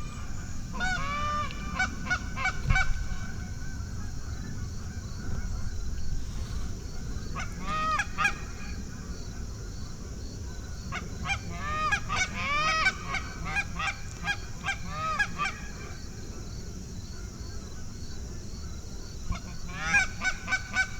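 Canada geese honking and clucking in several bursts of quick, rapid-fire calls, with short lulls between them.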